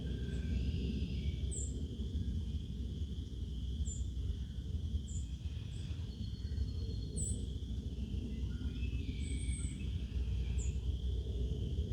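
Birds chirping and calling, short high chirps every second or two, over a steady low rumble.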